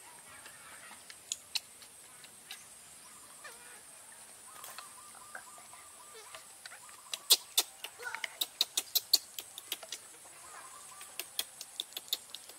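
Baby macaque giving a few short calls, with a quick run of sharp clicks and taps about seven seconds in and again near the end as the plastic feeding bottle and its cap are handled. A steady high insect buzz runs behind.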